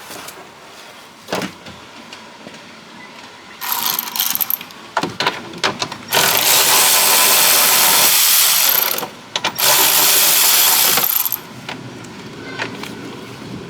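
A handheld power tool running in two long bursts, about three seconds and then about a second and a half, after a few shorter bursts and some clatter of handling.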